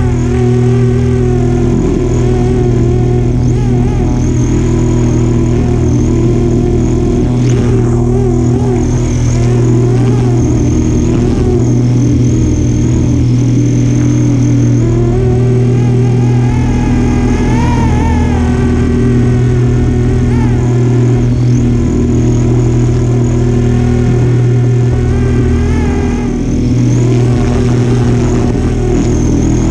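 FlyWing AS350 Squirrel RC helicopter in flight, heard from close up: a steady motor and rotor drone with a whine that wavers up and down in pitch as the throttle changes.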